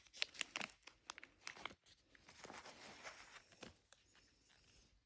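Small plastic blind bag being torn open and crinkled by hand: a quick run of sharp crackles, then a softer rustling that fades near the end.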